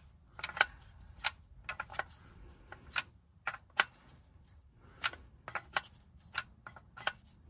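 Sharp, irregular clicks, about two a second, of a plastic clutch alignment tool knocking in the splined hub of a new clutch disc as it is worked to centre the disc on the flywheel.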